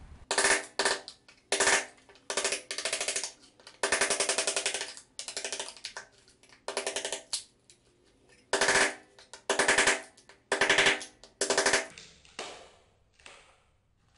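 A tool cutting into prefinished wooden parquet boards in about fifteen short, harsh strokes, stripping away the top wood layer. The strokes grow fainter near the end.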